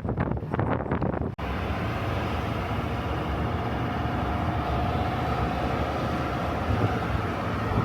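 Wind buffeting the microphone in irregular gusts, then after an abrupt cut about a second and a half in, the steady noise of a vehicle on the move with a faint drone.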